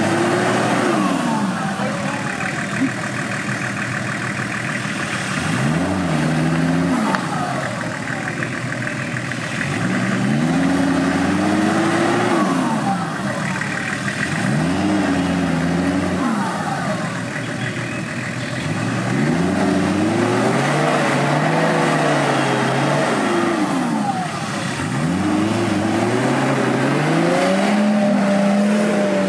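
An off-road 4x4's engine revving in repeated surges, about six times, each climbing in pitch and dropping back, with one longer, drawn-out rev past the middle, as the vehicle works hard over rough terrain.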